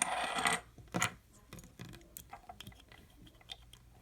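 Small clicks and taps of a 1:50 scale die-cast model skid steer and its attachments being handled, with a brief rustle at the start and a sharper click about a second in.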